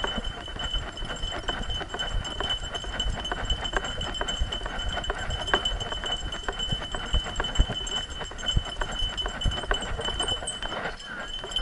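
Dogs running in harness, heard from a camera on one dog's back: quick rhythmic footfalls and the knocking and jostling of the harness and camera, over a steady high-pitched tone.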